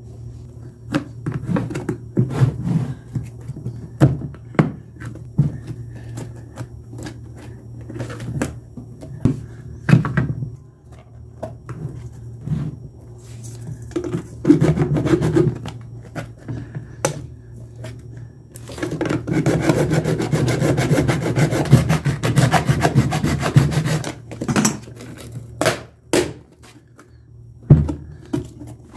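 Hard plastic lid of a sealed lead-acid car battery being pried and wrenched off its case with a screwdriver: scattered clicks, knocks and scraping of plastic on plastic. About two-thirds through there are a few seconds of rapid, continuous scraping and crackling.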